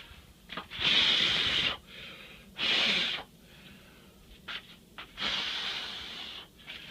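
Three breathy rushes of air, each half a second to a second and a half long, the first the loudest and the last fading away.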